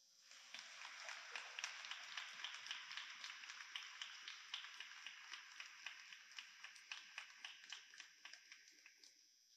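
Audience applauding, faintly, the claps thinning out into a few separate ones and fading away near the end.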